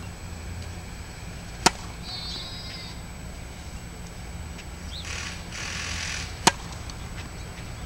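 Two sharp cracks of a tennis racket striking a ball, the first just under two seconds in and the second about six and a half seconds in as a serve is hit after the ball toss.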